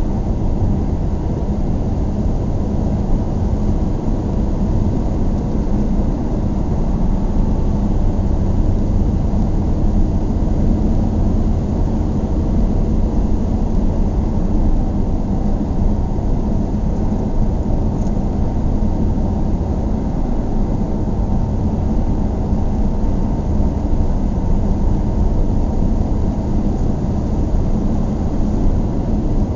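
Steady low rumble of a car driving along at moderate speed, mostly tyre and road noise with the engine underneath.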